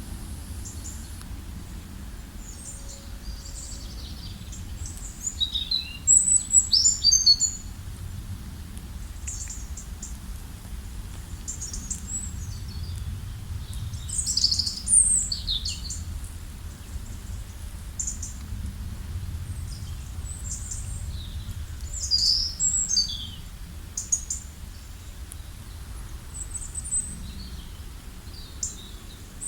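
Wild birds chirping and singing in short, high, quick phrases, with louder bursts about six, fourteen and twenty-two seconds in, over a steady low background rumble.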